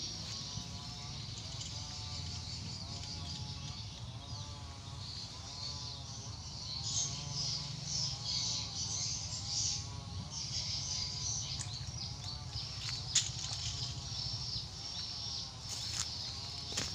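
Swamp ambience: an animal call repeating about one and a half times a second, each call rising and falling in pitch, over a steady high-pitched insect chorus. A few sharp clicks sound in the second half.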